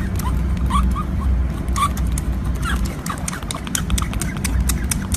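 Otter pup suckling from a feeding bottle: many quick sharp clicks and smacks of its mouth on the teat, with short high squeaks scattered through, over a low steady rumble.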